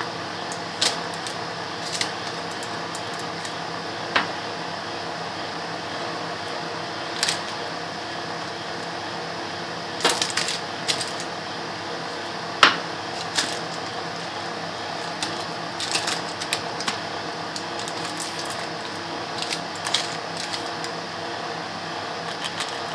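A metal spoon spreading thick melted chocolate over biscuits in a metal loaf tin, giving scattered sharp clicks and taps against the biscuits and tin over a steady background hum.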